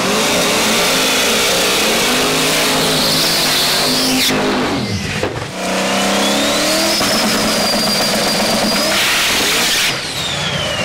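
A drag race car's engine revving hard at the starting line and then at full throttle on the launch, with a high whine that rises and then falls away; the sound breaks off abruptly twice.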